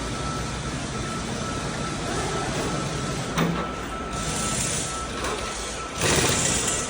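Assembly-line workshop noise: a steady machinery din with a thin steady tone through it, a knock about three and a half seconds in, and a louder burst of clatter near the end.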